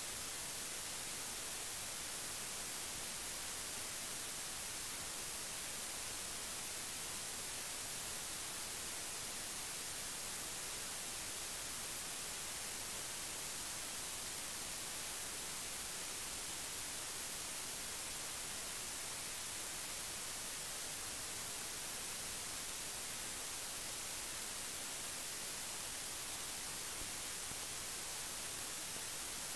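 Steady, even hiss of static with no other sound standing out.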